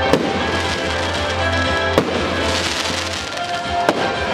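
Aerial fireworks shells bursting over music, with three sharp bangs about two seconds apart.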